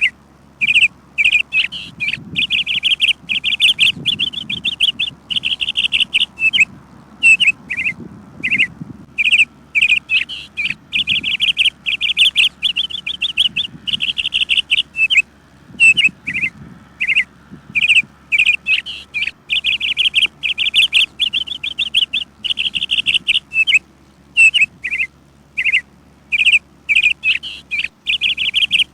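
Bird chirping over and over: short high chirps, often run together into quick strings of notes lasting about a second.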